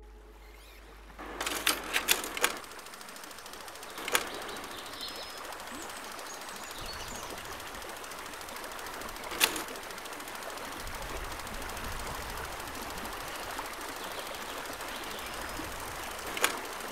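Steady rush of flowing river water, starting about a second in. Several sharp clicks stand out against it: a quick cluster early on, then single clicks spaced several seconds apart. A faint bird chirp is also heard.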